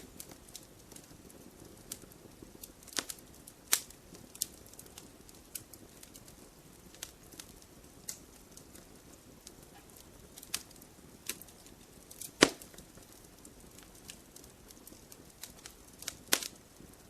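Campfire burning: irregular crackles and sharp pops of burning wood over a low, steady rush of flame. The loudest pop comes about twelve seconds in.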